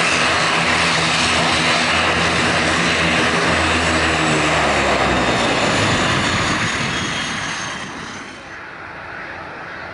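ATR 72-600's Pratt & Whitney PW127M turboprop engines running at low power on the stand: a steady propeller hum under a high turbine whine that sinks slightly in pitch. The low hum stops about five seconds in, and the whole sound falls away between seven and eight seconds in.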